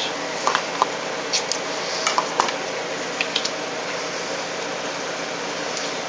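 A few soft clicks and light rustles of black tape being handled and pressed onto the wing, over a steady background hiss.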